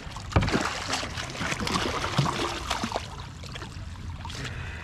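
Water splashing and trickling around a kayak, with sharp knocks and clatters of handling against the hull, the loudest about half a second in.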